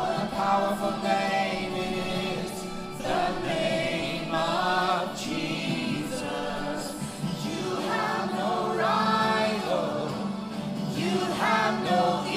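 A church worship team sings a gospel praise song together into microphones over a steady held instrumental backing.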